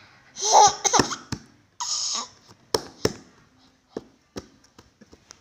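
Baby laughing in short bursts, then a run of sharp taps of small hands on a wooden tabletop.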